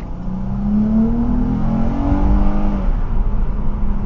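Chrysler 300's 3.6-litre Pentastar V6, fitted with an AirAid cold air intake and throttle body spacer, accelerating under load, its engine note climbing in pitch and then easing off about three seconds in. The added intake sound is the difference that is definitely heard.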